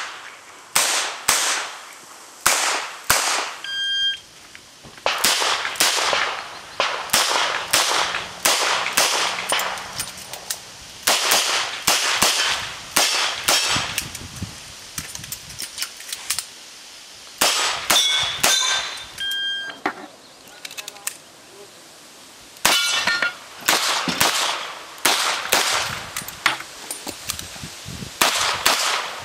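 Revolver fired in quick pairs and strings of shots, with pauses of a second or more between groups. Several hits are followed by short metallic rings from steel targets.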